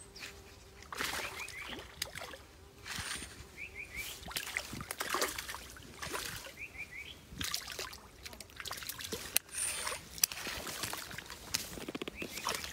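A baitcasting reel being cranked while a hooked bass splashes and thrashes at the water's surface, in irregular bursts.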